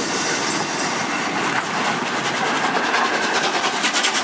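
Steam locomotive (LNER Peppercorn A1 Pacific 60163 Tornado) moving slowly past at close range, with a steady loud hiss of steam. A quick rhythmic clicking, about five beats a second, grows stronger from about a second and a half in.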